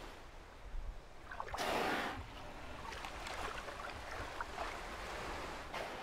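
Killer whales surfacing in an open lead in the sea ice: a loud hissing blow about two seconds in and another starting near the end, over water lapping at the ice edge.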